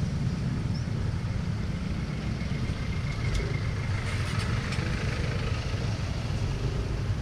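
Yamaha NMAX scooter riding slowly through traffic: a steady low rumble of engine and wind on the camera microphone, with faint traffic around it.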